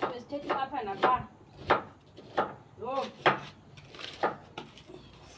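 Firewood being handled at a wood fire: a series of sharp wooden knocks, about seven, roughly one a second, with a brief voice among them.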